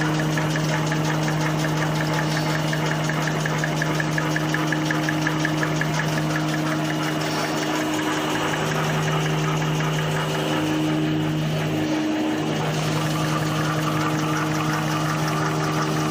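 Four-line V-fold hand towel tissue making machine running steadily: a constant motor hum with a fast, even mechanical clatter from the rollers and folding section.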